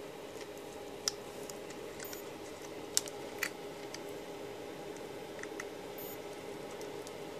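A faint steady electrical hum from the bench electronics, with a few light clicks about one second and three seconds in; the motors are not running.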